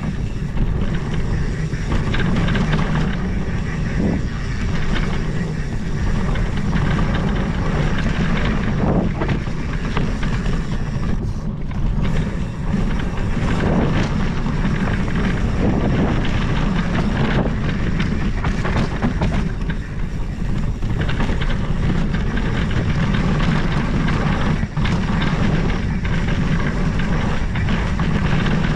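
Mountain bike riding fast down a dirt singletrack: a steady rumble of knobby tyres on the trail and wind buffeting the microphone, with scattered knocks and rattles from the bike over bumps.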